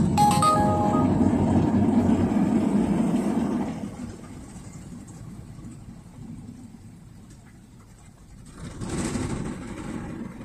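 An automatic gantry car wash machine sounds a short electronic chime of a few steady tones, and its low running rumble dies away about four seconds in. A rushing noise swells and fades near the end.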